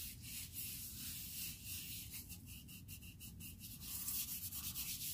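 Gloved hands handling and rubbing a wooden mallet: faint scuffing and rustling.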